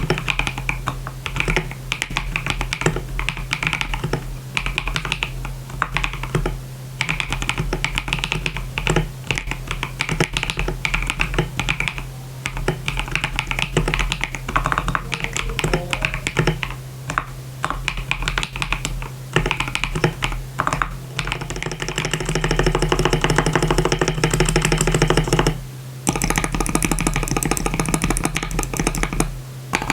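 Typing on a KBD67 Lite R2 custom mechanical keyboard with a polycarbonate plate, KTT Strawberry linear switches lubed with Krytox 205 g0 (springs with Krytox 105) and Akko keycaps: a steady run of keystrokes with a few brief pauses.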